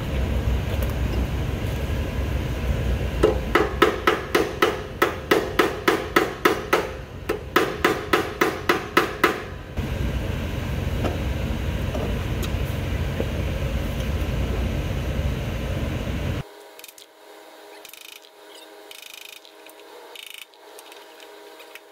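Hammer blows on metal, about three a second in two quick runs of some twenty strikes, each with a short metallic ring, over a steady low hum. The hammer is driving the roll pin out of the Zamboni 546 blade-shaft coupling, with a 1/4-20 machine screw standing in for a punch.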